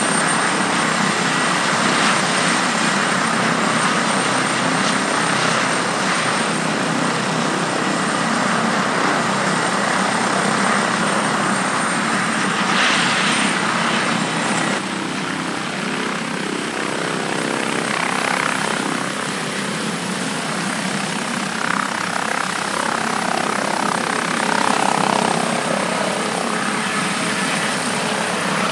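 Airbus Helicopters H145 D3's twin Safran Arriel 2E turboshaft engines and five-blade rotor running steadily, with a constant high turbine whine over the rotor noise. About halfway through, the whine shifts slightly higher.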